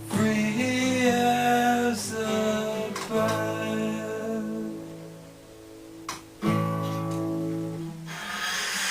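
Acoustic guitar music: strummed chords left to ring, changing every couple of seconds, with a hissing rush near the end.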